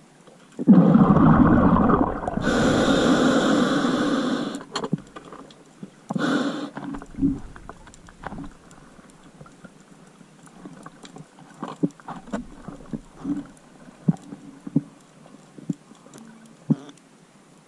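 A scuba diver's regulator underwater: a loud rush of exhaled bubbles, then a hissing inhalation, with a second short breath about six seconds in. Scattered faint underwater clicks and pops follow.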